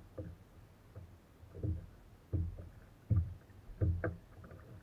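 Low thumps knocking on a Hobie Outback plastic kayak hull, coming in a loose rhythm about every three-quarters of a second and growing louder from about a second and a half in.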